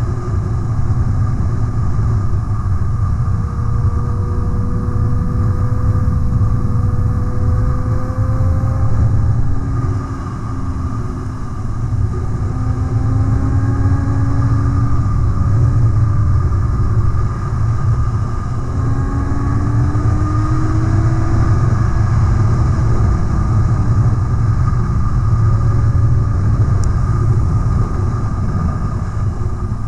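Motorcycle riding heard from the bike itself: heavy wind rush on the microphone over the engine, whose note slowly rises and drops back several times as it speeds up and shifts.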